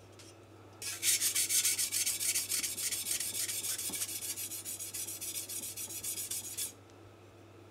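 Steel chef's knife blade scraping back and forth on a wet King Deluxe 1000 grit Japanese waterstone in quick, even strokes, working the heel to finish raising the burr. It starts about a second in and stops near the end.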